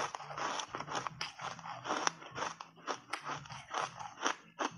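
Crunchy foam block ice coated in matcha powder being chewed: a rapid, irregular run of crunches, several a second.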